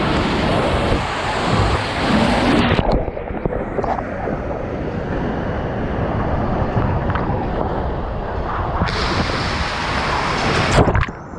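Water rushing and a rider sliding down a plastic water-slide tube. The sound is muffled through the long middle stretch and clearer again near the end, as the slide opens out toward the splash-down.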